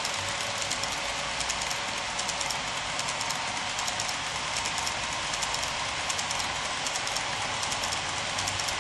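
HO-scale coal hopper cars rolling along model track, their small metal wheels running with a steady hiss and rapid clicking over the rail joints.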